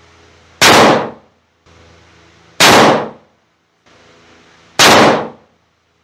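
Three rifle shots from a 7mm PRC Mossberg Patriot bolt-action rifle, about two seconds apart, each fading briefly and then cut off short.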